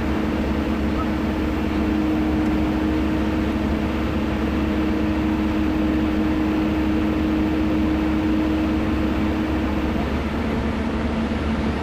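Heavy diesel engine running steadily under load, with a held whine that stops about ten seconds in.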